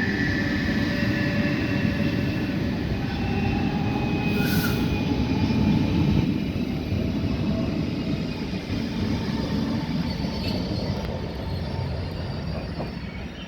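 DB Class 425 electric multiple unit pulling out, its wheels squealing in several steady high tones over the rumble of the running gear. A short hiss comes about four and a half seconds in. The sound fades as the train moves away.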